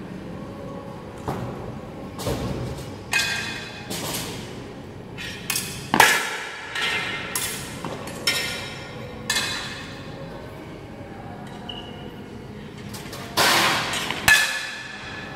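Steel training swords and bucklers striking each other in sparring: about a dozen irregular clangs, each with a short metallic ring, with a lull about two thirds of the way through and two hard strikes near the end.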